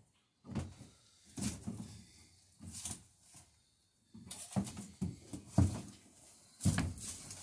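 Footsteps and shuffling on a wood-shaving-covered shop floor, with irregular light knocks of wood being handled. One sharper knock a little past halfway.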